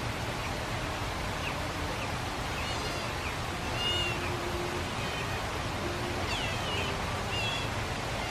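Asian small-clawed otters calling: short, high-pitched, cat-like mewing chirps, repeated in scattered bursts, with the most calls near the middle and toward the end.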